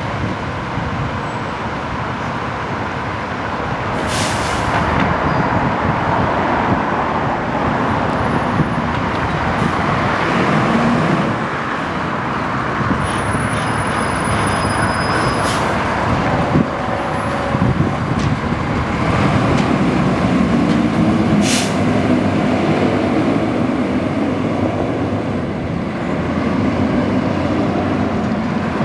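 Fire engine's diesel engine running steadily, with two short air-brake hisses, about four seconds in and again about twenty-one seconds in.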